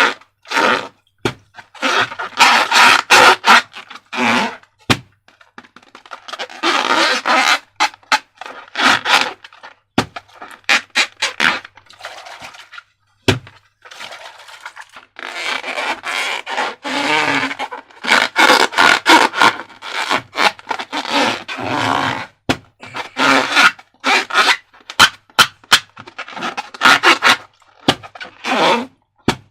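Slime and rubber balloons being handled: irregular bursts of rubbing and squishing noise full of sharp clicks, with short pauses between them.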